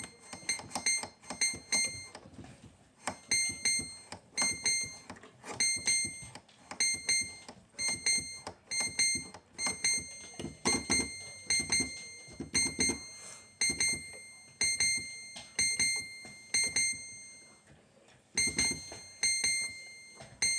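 Electronic keyboard playing a very high, piercing note over and over, each press starting sharply and fading, about one or two presses a second.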